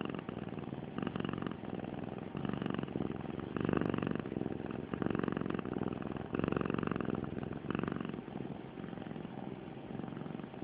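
Domestic cat purring: a continuous rumble that swells louder roughly once a second, the swells growing weaker over the last couple of seconds.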